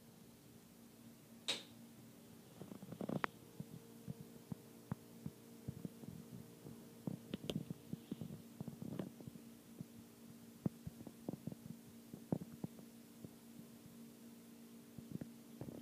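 A pet's mouth making irregular crunching, clicking tooth sounds, a few sharp ones standing out, over a steady low hum.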